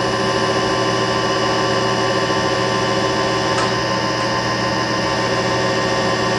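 Shigiya GU-30B universal cylindrical grinder running its automatic traverse grinding cycle in coarse feed: a steady machine hum made of several even tones, with a faint tick about three and a half seconds in.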